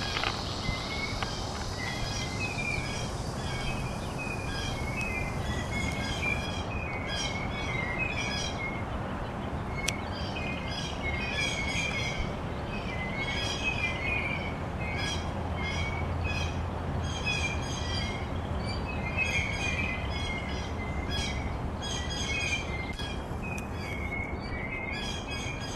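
A flock of songbirds calling raucously, many short overlapping chirps repeating without pause, over steady background noise.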